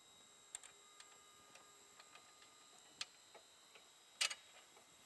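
Scattered small metallic clicks and taps of a flanged bolt being handled and fitted into a shock-absorber mount bracket. The sharpest click comes about three seconds in, and a short cluster of taps a little after four seconds.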